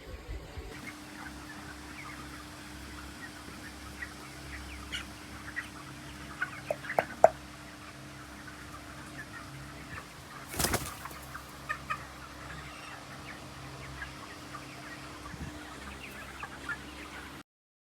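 Chickens calling with short, scattered chirps over a steady low hum, with one loud clatter about ten seconds in; the sound cuts off just before the end.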